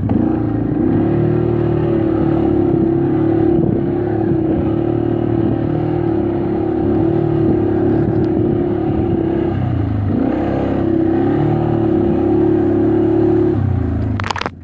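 ATV engine running under throttle. Its pitch climbs in the first second and holds steady, then it eases off and climbs again about ten seconds in. It drops away near the end, where a few sharp knocks sound.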